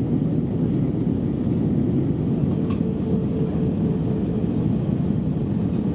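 Steady roar inside an Airbus A320 cabin descending on approach to land, heard from a window seat over the wing: engine noise and rushing airflow. A faint steady tone joins for about two seconds in the middle.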